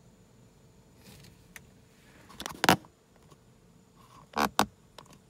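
Camera handling noise as the camera is moved: a few sharp knocks and scrapes in two short clusters about two seconds apart, the first the loudest, over a faint steady hiss.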